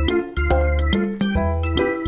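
Cheerful background music with bell-like chimes over a steady bass beat.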